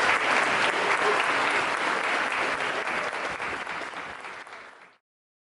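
Audience applauding, a dense patter of many hands clapping, which fades and cuts off to silence about five seconds in.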